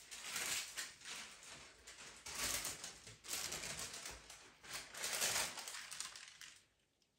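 A sheet of glassine paper being wiped clean by hand: a few rubbing, scratchy strokes that stop shortly before the end.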